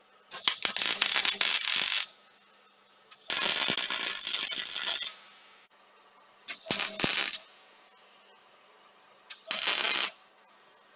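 MIG welder arc crackling and spitting on steel plate in four short welds, the first two about two seconds long and the last two under a second, each stopping abruptly.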